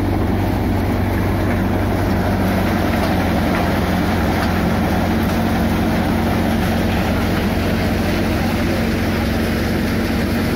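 Tractor-driven groundnut thresher running, a loud steady drone of engine and threshing machinery with a constant low hum.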